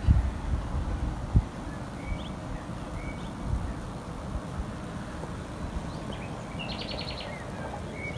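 Birds chirping: a few short chirps, then a quick run of about six high notes near the end. There is a steady outdoor background, with a couple of low thumps in the first second and a half.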